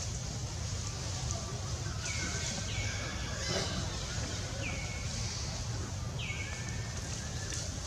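Repeated high-pitched animal calls, about five, each sliding steeply down and then holding a level note briefly, over a steady low outdoor rumble.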